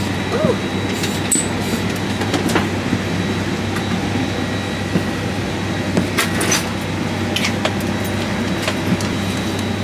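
Steady drone of an airliner cabin with a constant hum, overlaid by light clicks and clatter of meal containers and galley fittings being handled.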